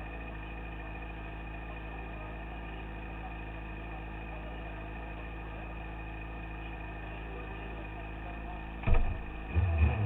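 Kartcross's Suzuki GSX-R 600 four-cylinder motorcycle engine idling steadily. About nine seconds in it is blipped sharply, then revved up and down several times.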